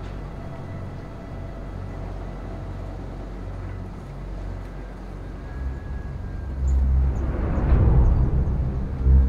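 Dark, ominous film-score drone: a low steady hum with faint held tones that swells about five seconds in into a loud, churning low rumble.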